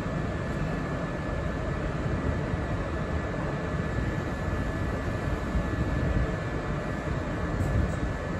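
A train running steadily: an even low rumble with a faint, steady high whine above it.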